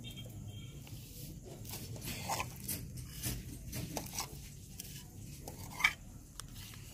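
A plastic spoon scooping fruit custard out of a glass bowl: soft scrapes and light taps, with one sharper tap near the end.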